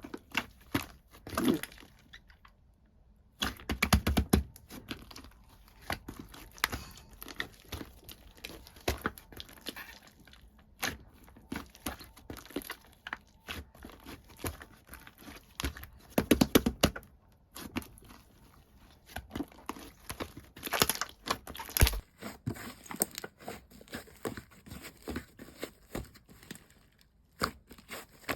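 Slime being kneaded, stretched and pressed by hand, giving irregular sticky crackles, clicks and squishes, with louder bursts of crackling a few times.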